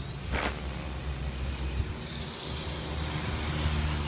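Remote-control helicopter in flight, its motor and rotor running steadily with a thin high whine over a low hum.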